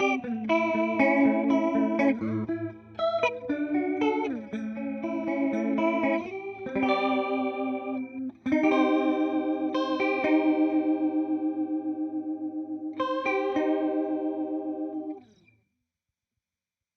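Electric guitar, a Fender Jazzmaster with humbuckers, played through a Boss CE-2 analog chorus pedal: picked notes and chords with a slide down about four seconds in. Then a long ringing chord whose level wavers evenly with the chorus sweep, cut off about fifteen seconds in.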